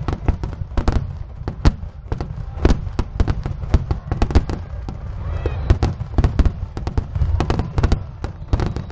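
Fireworks display: shells bursting in rapid succession, many sharp bangs and crackles over a continuous deep rumble.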